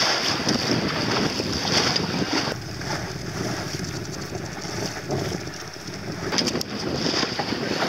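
Wind buffeting the microphone over the splash and rush of choppy water against a small boat under way. It eases a few seconds in and picks up again near the end.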